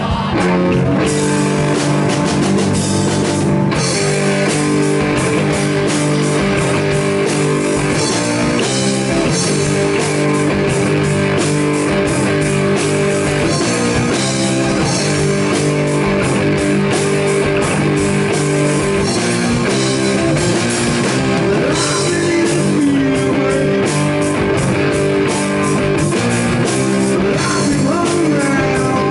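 Live blues-rock band playing loud: electric guitar, bass guitar and drum kit together.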